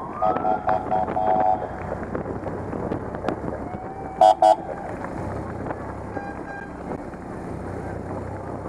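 Police motorcycle horns tooting in a quick string of short beeps, then a louder pair about four seconds in. A siren whoop rises at the very start, over the steady low rumble of motorcycle engines.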